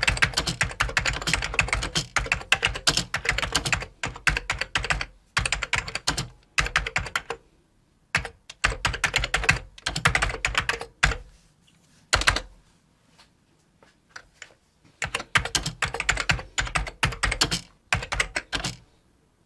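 Typing on a computer keyboard: rapid runs of key clicks broken by short pauses, with a few single louder keystrokes and a longer pause of about two seconds past the middle.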